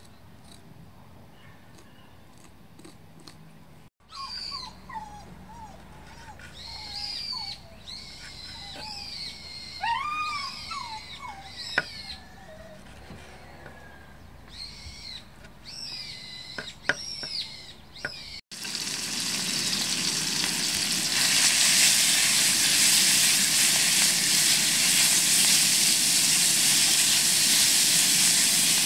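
Nutria meat stir-frying in a wok: a steady, loud sizzle that starts suddenly about two-thirds of the way in. Before it come a few faint clicks, then a run of high, gliding animal calls.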